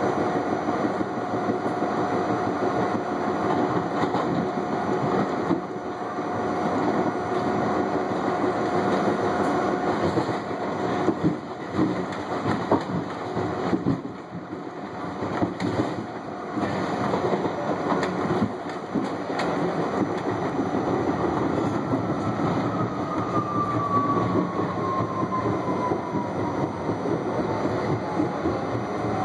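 R68A subway car running on steel rails, heard from inside at the front: steady rolling rumble with a steady whine for the first third, then a stretch of clattering knocks as the wheels cross track switches. In the last third a whine falls steadily in pitch as the Westinghouse 1447J DC traction motors slow the train on dynamic braking.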